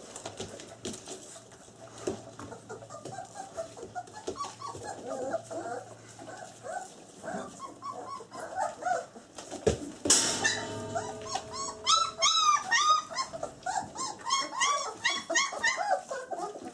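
Twenty-day-old German Shepherd puppies whimpering and squealing: short, high, arched squeaks, scattered at first over faint clicking, then after a sharp knock about ten seconds in, loud and coming several times a second.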